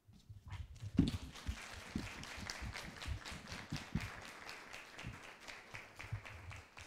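Audience applauding, building up in the first second and dying away near the end.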